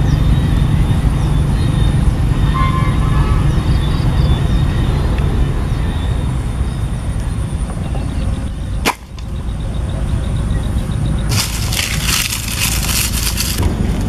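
Steady low rumble of wind on the microphone. Near the end comes about two seconds of dry crackling and snapping of wood and twigs as sticks are handled over a small fire.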